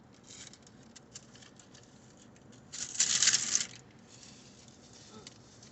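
Eating noises: faint small clicks and mouth sounds, with a loud crackly rustle about a second long, about three seconds in, as the food and its packaging are handled.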